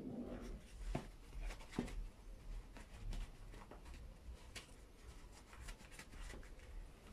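Quiet workshop room tone with a low hum, broken by scattered light clicks and taps, the clearest about one and two seconds in.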